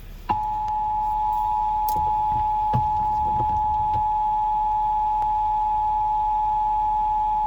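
Emergency Alert System attention signal broadcast on FM radio: the 853 Hz and 960 Hz two-tone alarm sounding together. It starts about a third of a second in and holds steady.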